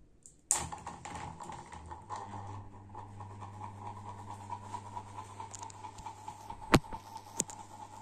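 A sharp click about half a second in, then the GMC FC-06-70 mini ceiling fan's 220 V motor starting up as its three blades spin: a steady hum with a whir and faint rapid ticking. Two sharp knocks near the end.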